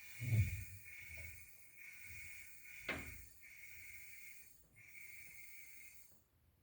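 Compressed air hissing steadily into a pneumatic air jack as it lifts the rear of a car, with a low thump about half a second in and a sharp click about three seconds in.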